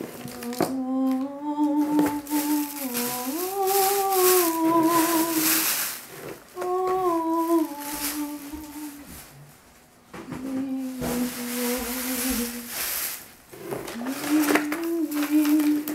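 A person humming a slow tune in several phrases with short breaks, holding long notes and sliding between pitches. Scattered clicks and knocks sound behind the humming.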